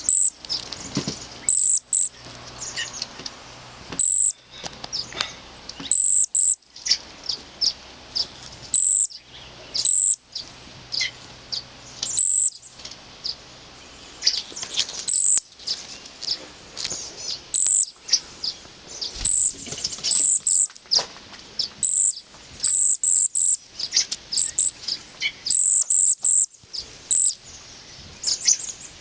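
Birds chirping: many short, very high-pitched calls, some coming in quick runs.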